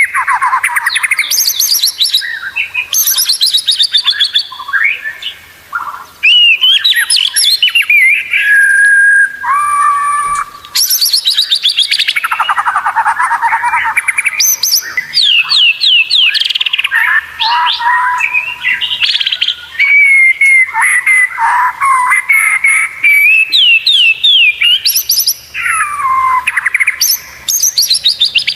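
White-rumped shama singing a long, varied song without pause, mixing rapid trills, fast repeated chattering notes and clear sweeping whistles.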